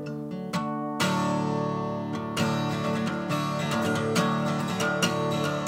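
Acoustic guitar playing an instrumental passage: a few picked notes, then fuller strummed chords from about a second in.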